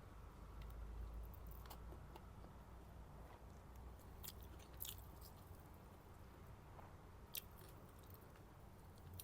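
Faint chewing of a mouthful of biryani, with a few soft, sharp mouth clicks, over a low steady hum.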